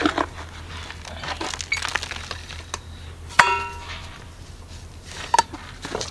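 A small metal soil scoop scraping and digging gritty potting soil out of a plastic bucket, with a string of sharp clinks and knocks. One knock about three and a half seconds in rings briefly.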